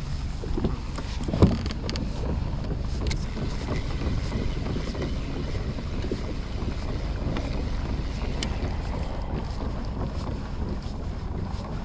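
Wind buffeting the microphone in a steady low rumble, with one sharp knock about a second and a half in and a few faint clicks.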